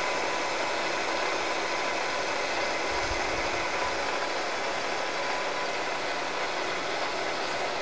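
Steady fan-like machinery noise with a faint, steady high whine, and a brief low rumble about three seconds in.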